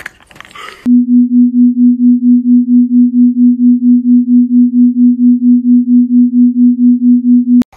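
A loud, low, pure electronic tone, played as "the frequency cats purr at", throbbing about five times a second. It starts abruptly about a second in and cuts off suddenly just before the end.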